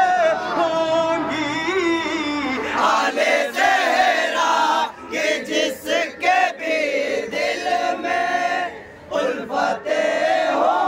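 Voices chanting a Muharram manqabat, an Urdu devotional poem for Husain, sung in long wavering melodic lines with brief breaks about five and nine seconds in.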